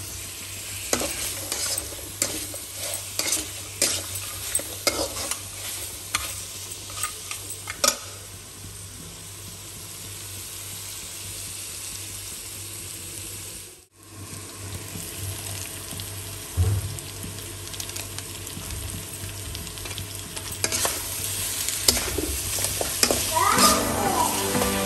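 Mutton pieces in masala sizzling as they fry in an iron kadai, with a steel spatula scraping and knocking against the pan in repeated stirring strokes.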